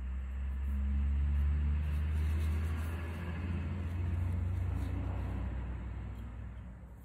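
Low rumble of a passing motor vehicle, swelling over the first second and fading away near the end.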